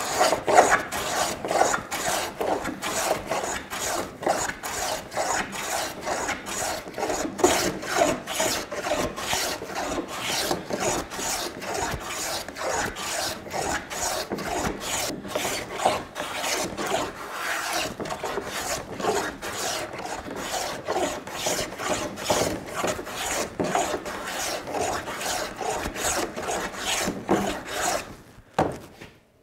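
Metal hand plane shaving down the edge of a wooden door frame in quick, repeated rasping strokes, each pass peeling off a curl of wood. The strokes stop about a second before the end.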